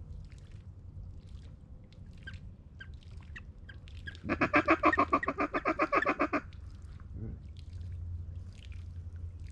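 Rapid quacking chatter of a duck, about ten even quacks a second for two seconds near the middle, with faint scattered chirps of waterfowl before and after.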